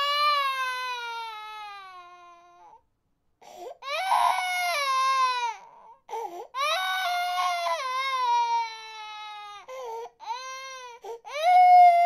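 Infant crying: a string of long wails, each sliding down in pitch at its end, broken by short catching breaths. There is a brief pause about three seconds in, and a fresh, loud wail starts near the end.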